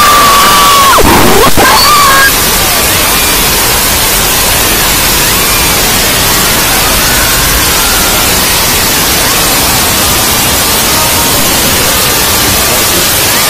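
A high-pitched scream over loud hiss for about the first two seconds, then a steady loud hiss like static to the end.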